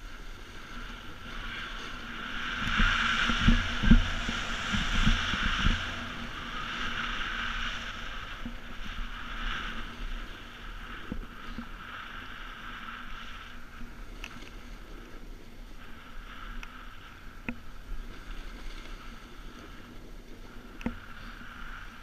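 Snowboard sliding and carving over groomed snow: a steady scraping hiss, loudest with a run of low knocks from the board over bumps about three to six seconds in, then quieter.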